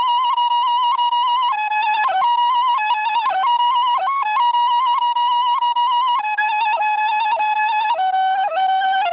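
Music: a solo woodwind playing a slow melody in long held notes, with small ornamental turns as it steps from note to note.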